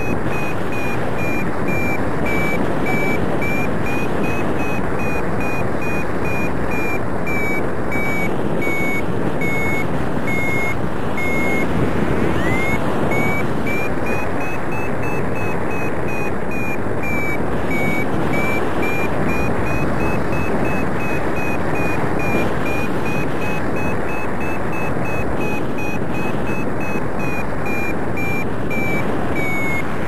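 Paragliding variometer beeping steadily, its pitch drifting up and down as the climb rate changes, over steady wind rush on the microphone in flight.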